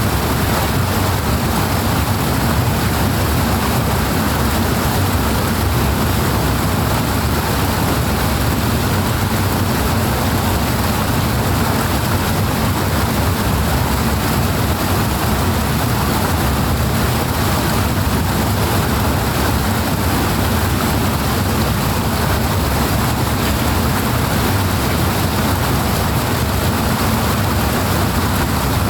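Powerful rushing water, a loud steady noise that does not change, heaviest in the low range.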